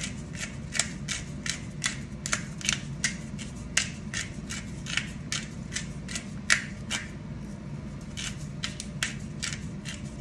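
Hand pepper mill being twisted to grind pepper: a quick run of dry clicking grinds, about two or three a second, with a short pause before it starts again near the end, over a steady low hum.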